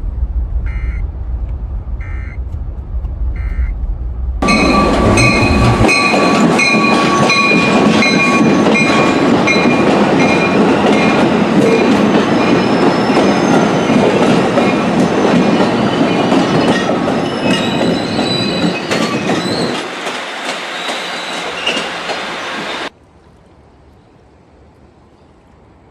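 Three short bursts of Emergency Alert System header data over a low rumble, then a loud, noisy sound with several steady high squealing tones and clicks. It lasts about 18 seconds and cuts off abruptly.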